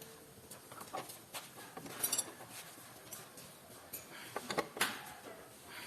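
Scattered light clicks and knocks, a few at a time, of hand work in a workshop.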